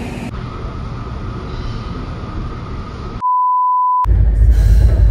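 Steady hum of a railway platform, cut off about three seconds in by a single steady test-tone beep of under a second, the kind played over TV colour bars. After it comes a loud low rumble of a moving train carriage.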